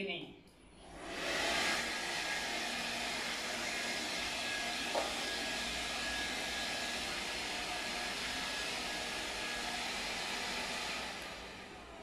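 Mr. Siga imop V6 cordless stick vacuum switched on: its motor spins up about a second in and runs steadily with a rushing suction noise and a faint whine, while the mop head is pushed over a tiled floor. Near the end it dies away as the motor winds down.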